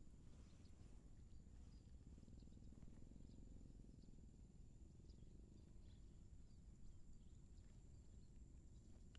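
Near silence: faint outdoor background with a low rumble, a steady faint high-pitched tone and a few soft ticks.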